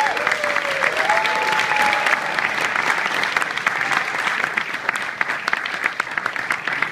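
Audience applauding, dense clapping that eases slightly toward the end, with a brief cheer over it in the first two seconds.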